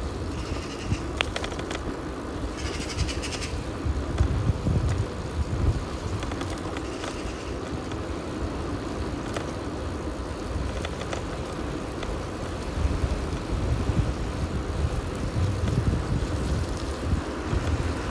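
Wind buffeting the microphone as a bicycle rides along a wet road, an uneven low rumble over the hiss of the tyres on wet tarmac, with a few faint clicks.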